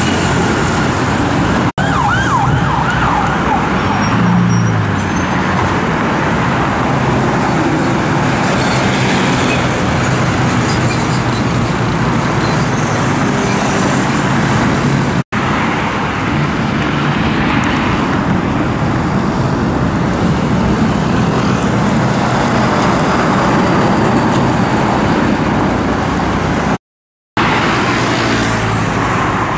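Busy highway traffic: a steady stream of motor scooters and cars passing at speed, with an engine rising in pitch as it speeds up about four seconds in. The sound cuts out briefly three times.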